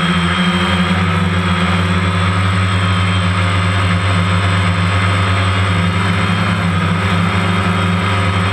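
Quadcopter drone's motors and propellers humming steadily in flight, loud and close as picked up by the drone's own camera.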